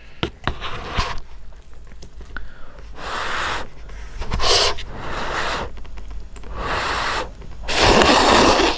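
Instant noodles being slurped off chopsticks from a paper cup bowl: a few light clicks of chopsticks against the cup at the start, then about five slurps, the last one the longest and loudest.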